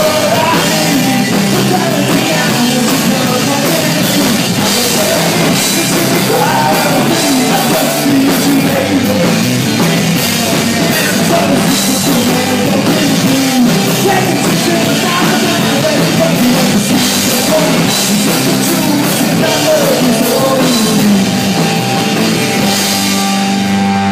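A punk rock band playing live: electric guitars, bass and a drum kit, with a male singer. The cymbals and drums drop out near the end as the song closes, leaving held guitar notes.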